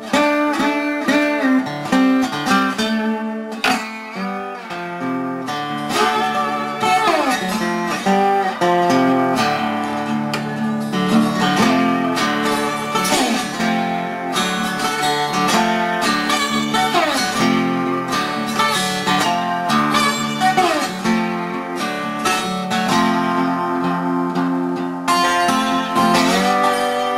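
Wooden-bodied resonator guitar with a metal cover plate, played with a bottleneck slide: plucked notes with frequent sliding glides in pitch.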